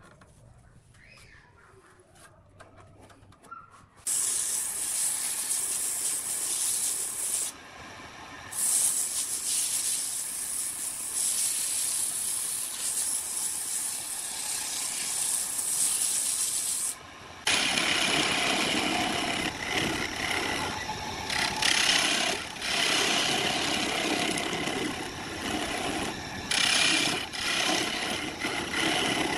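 Sandpaper hissing against a wooden vase spinning on a wood lathe, starting about four seconds in after a quiet opening. In the last third a hand-held turning tool works at the base of the spinning vase with a rougher scraping.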